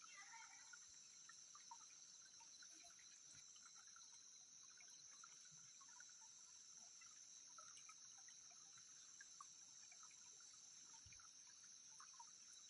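Near silence: a faint steady high-pitched insect hum, with faint scattered trickling and dripping of a small creek.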